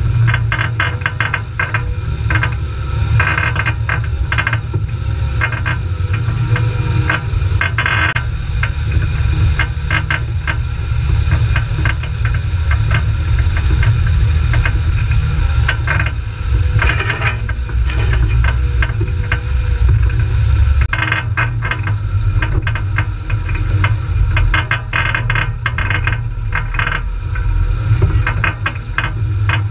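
Jeep engine running at low speed with a steady low rumble, under constant rattling and knocking from the body as it drives over a rough, rutted dirt track.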